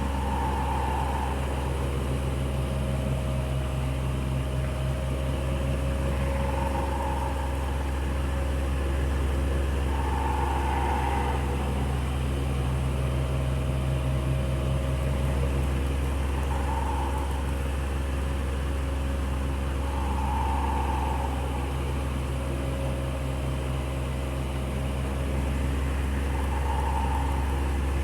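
Electric fan running steadily, with a low motor hum and airflow noise. A softer higher swell comes back every four to six seconds.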